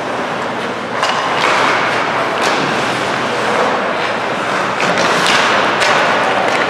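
Ice hockey game noise in a rink: several sharp clacks and thuds of sticks, puck and boards over a steady haze of rink noise.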